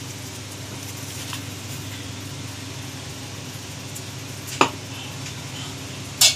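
A steady low hum, broken by two sharp clicks, one about four and a half seconds in and a louder one near the end.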